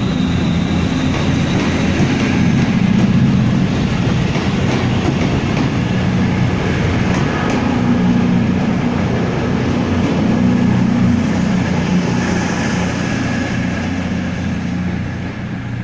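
Virgin Trains Class 221 Super Voyager diesel multiple unit running into the platform, its underfloor diesel engines droning steadily under the rumble of the moving train.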